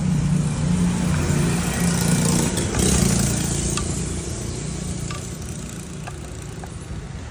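An engine running steadily with a low hum that gradually grows quieter, with a few faint clicks.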